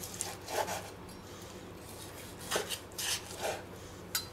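Long carving knife sawing through the browned crust of a rolled pork roast in a few short rasping strokes, with a sharper click near the end as the blade meets the wooden cutting board.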